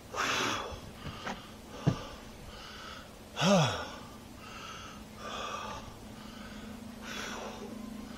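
A man breathing hard and heavily after strenuous tree-trimming work, a deep breath every second or two, with a short falling groan about three and a half seconds in and a sharp click near two seconds.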